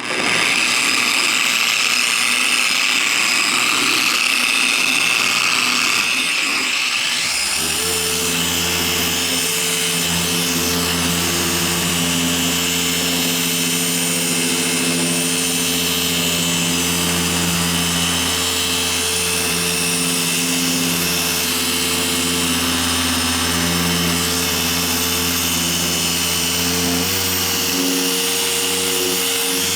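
Machine polisher starting up on a low speed setting and running steadily, working polish into a painted panel to cut out sanding scratches. About seven seconds in, its sound settles into a steadier hum.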